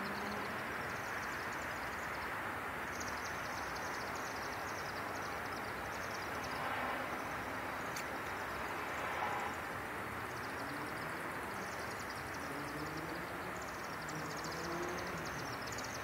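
Steady traffic noise with bursts of high, rapid chittering from a swarm of small birds, which the uploader takes for chimney swifts, circling a chimney to roost.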